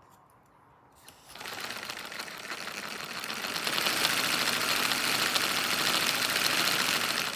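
Paper model four-cylinder radial engine running on breath blown through a tube: a rush of air with a fast, fine clatter of paper parts. It starts about a second in and gets louder about halfway through.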